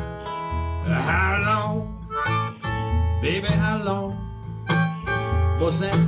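Harmonica playing a slow blues line with several bent notes over an Eastman acoustic guitar picking the accompaniment.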